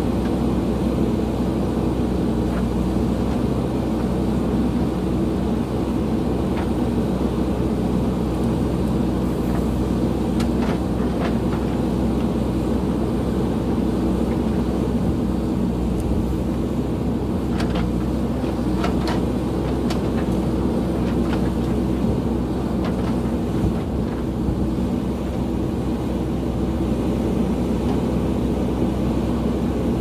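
JCB backhoe loader's diesel engine running steadily as the machine works over loose soil, with a few faint knocks about a third and two-thirds of the way through.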